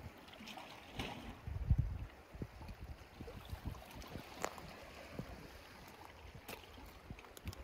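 Wind buffeting the microphone in low gusts over the gentle wash of sea water against shore rocks, with a few faint clicks.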